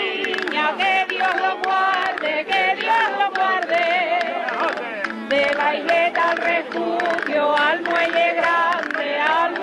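A Canarian parranda folk song: several men singing together in chorus over strummed acoustic guitars.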